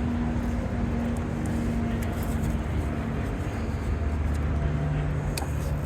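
Steady low vehicle rumble, with a couple of faint clicks about five seconds in.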